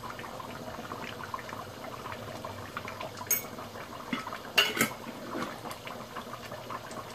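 Mutton curry simmering in an open aluminium pressure-cooker pot on a gas stove: a soft steady bubbling with small pops. Sharp clinks of cookware come once about three seconds in and twice more about a second later.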